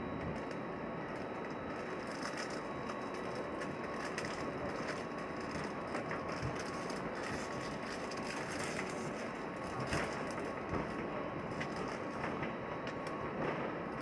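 Steady airliner cabin noise inside an Airbus A320, with frequent small rattles and knocks through it and a slightly louder knock about ten seconds in.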